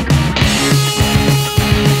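Loud background music with a steady beat and a repeating bass line, coming back in strongly at the start after a brief drop.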